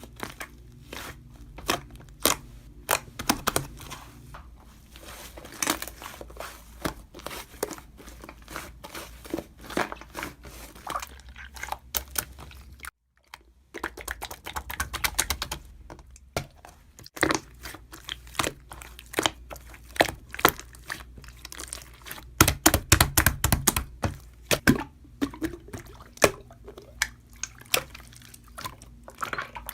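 Dense crunching and crinkling: many sharp, irregular crackles in quick succession. They break off for about half a second near the middle and grow denser and louder a little past two-thirds of the way through.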